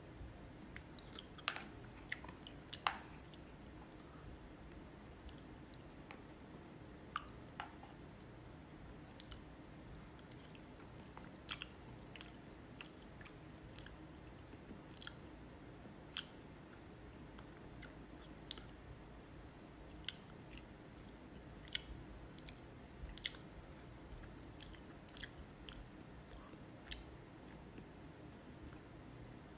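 A person eating with chopsticks: soft chewing, with scattered short, sharp clicks about every second or two, over a faint low hum.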